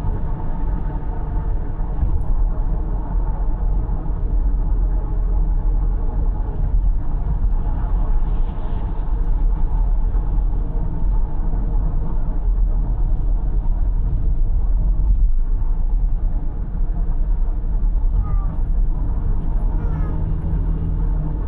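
Steady road and engine rumble inside a car cruising on an expressway, heavy in the low end and unchanging throughout.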